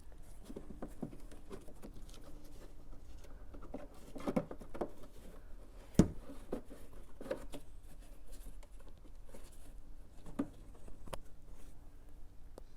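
Cabin pollen filter being pushed and worked into its housing by hand: scattered clicks and rustles, with one sharp knock about six seconds in.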